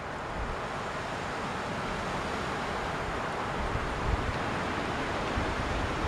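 Wind rushing through the trees in a steady, rising gust, with low buffeting of wind on the microphone in the second half.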